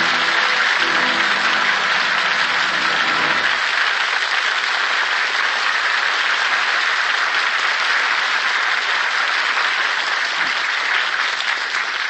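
Studio audience applauding steadily, as the last low notes of the orchestra's act-closing music fade out about three and a half seconds in. The applause tapers slightly near the end.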